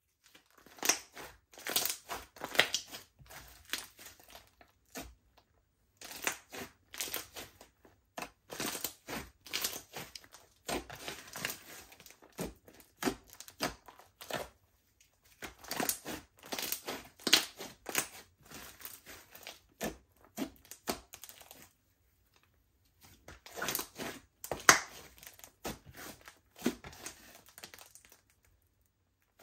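Slime being squished and kneaded by hand: dense runs of sticky crackles and small pops in bursts of a few seconds, with brief pauses between them.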